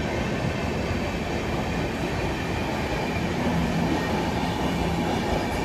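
Passenger train coaches rolling past on the track: a steady rumble of steel wheels on rails.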